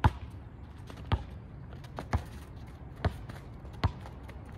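A basketball being dribbled on a paved outdoor court: five sharp bounces, about one a second.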